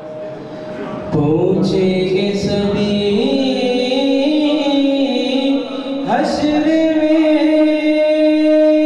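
Man singing a naat (Urdu devotional poem in praise of the Prophet) into a microphone. The voice has long held notes and gliding pitch. It breaks briefly about a second in and again just before six seconds, then rises into a long held note.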